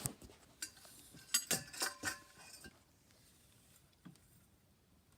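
Several light metallic clinks and knocks with a brief ring, bunched in the first two and a half seconds, as parts of a ceiling fan are handled.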